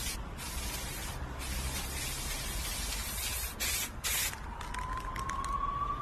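Aerosol spray-paint can hissing in several bursts, one of them about two seconds long. Near the end, a few quick clicks and a steady tone that rises slowly in pitch come in.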